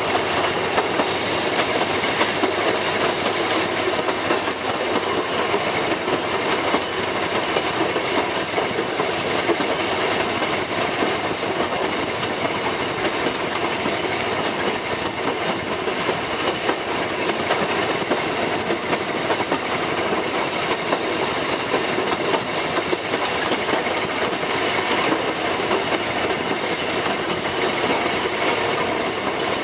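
Narrow-gauge diesel locomotive running along the track: steady engine and wheel-on-rail noise, heard from on board.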